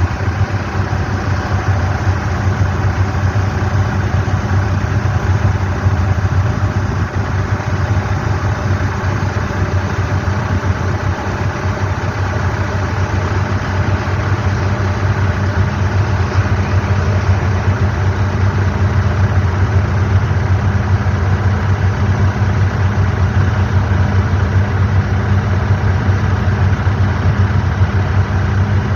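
Lion Air airliner's jet engines running, a loud steady drone with a deep hum that holds unchanged throughout.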